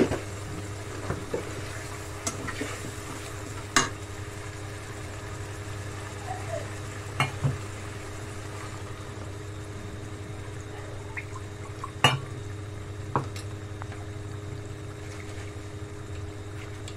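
Metal spatula stirring curry in an aluminium kadai, with scattered sharp clinks of metal against the pan, the loudest about four and twelve seconds in, over a steady low hum.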